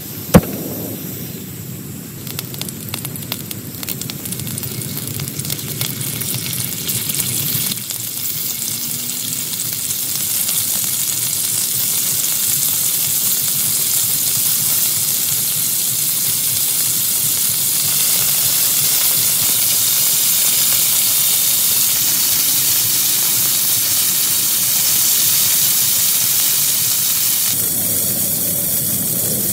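Heavy rain pouring onto a tent, growing louder over the first ten seconds and then holding steady as a dense hiss. A single sharp crack comes about half a second in, followed by a low rumble that fades over several seconds.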